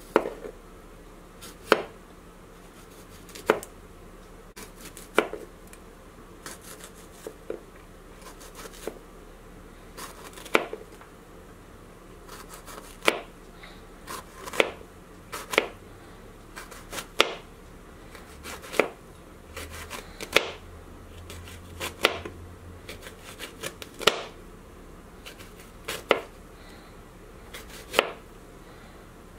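Chef's knife slicing a jalapeño pepper into rounds on a cutting board: a sharp knock of the blade meeting the board about every one and a half to two seconds, slow and even.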